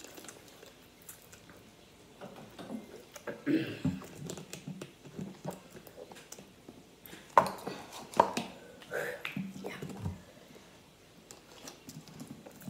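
Spicy instant ramen noodles being slurped and chewed with chopsticks, with scattered small clicks and knocks, two of them sharp and loud a little past seven and eight seconds in.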